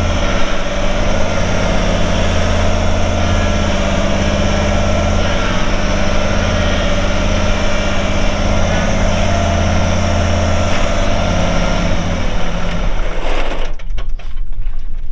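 Kubota compact tractor's diesel engine running steadily under throttle while the tractor works dirt with its front loader; about 13 seconds in the engine note drops as it is throttled down.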